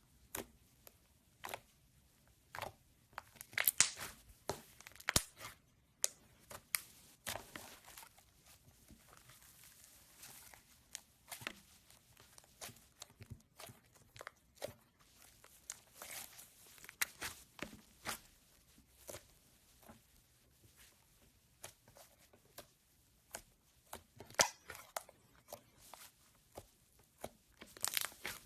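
Slime being mixed and squished by hand, giving irregular sticky clicks and pops.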